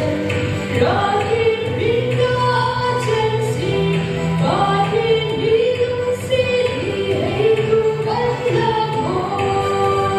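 A woman singing a song into a handheld microphone over backing music, holding long notes that slide from one pitch to the next.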